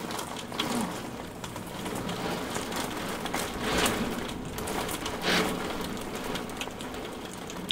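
Rain falling on a window pane: a steady hiss with many small drop hits, swelling louder twice around the middle.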